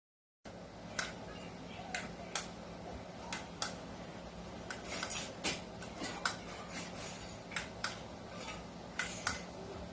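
A series of sharp, irregular clicks, about two a second, from a small object being clicked by hand, over a faint steady hum.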